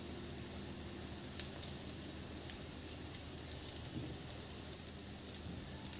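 Bitter gourd and onion masala frying in a nonstick kadai, a steady soft sizzle with a couple of faint pops.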